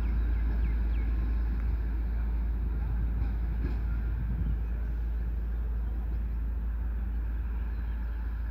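Engine of a rail-mounted track maintenance vehicle running as it moves away along the line, slowly fading, under heavy wind rumble on the microphone.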